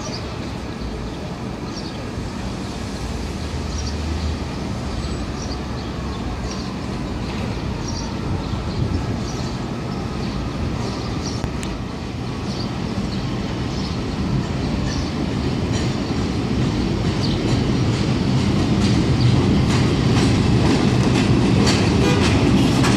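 An R142 subway train on the elevated line approaching and pulling into the station, its rumble growing steadily louder, loudest from about two-thirds of the way in. Its wheels click over the rail joints, the clicks coming closer together as it arrives.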